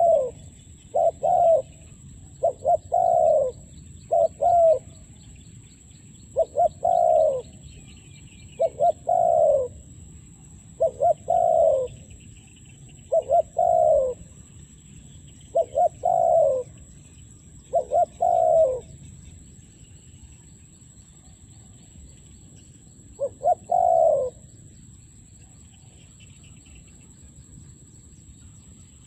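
A dove cooing repeatedly: short phrases of two or three falling coos about every two seconds, breaking off after about 19 seconds, with one more phrase near 24 seconds. Faint high chirping from small birds or insects runs underneath.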